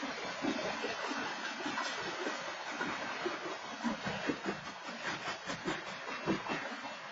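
A BNSF train's cars rolling past: a steady rumbling noise broken by irregular clanks and knocks of wheels and couplers, busiest in the middle of the stretch. No horn sounds.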